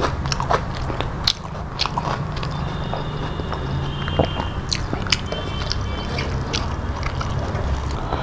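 Close-miked chewing and biting of food, with many short sharp mouth clicks and smacks over a steady low hum.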